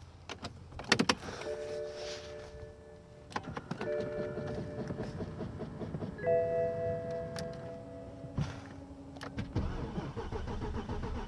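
Inside a BMW 750Li E66 whose electrics are powering up: several sharp clicks and three runs of a small electric motor whining at a steady pitch for a second or two each, like a power seat or steering column moving into position.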